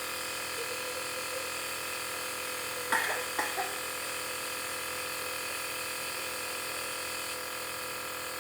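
Nebulizer compressor running with a steady electric hum, giving a steam treatment for a cough. A short burst of sound cuts in about three seconds in.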